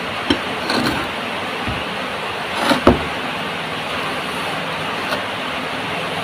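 Heavy rain making a steady hiss, with a few short eating noises close to the microphone over it, the loudest a sharp click about three seconds in.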